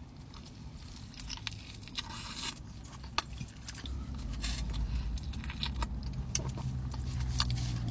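Biting into a flour-tortilla burrito and chewing it close to the microphone: a soft tearing of tortilla about two seconds in, then wet clicks and crackles of chewing. A steady low hum rises from about six seconds in.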